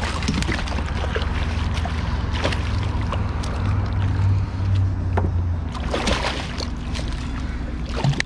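A hooked snook thrashing and leaping at the water's surface beside a kayak, several separate splashes, over a steady low rumble.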